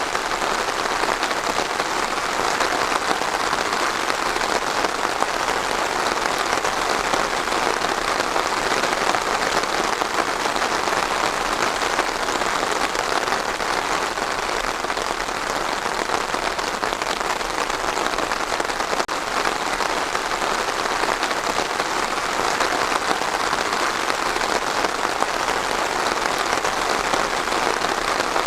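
Steady heavy rain falling on a surface, a dense even hiss of countless drops.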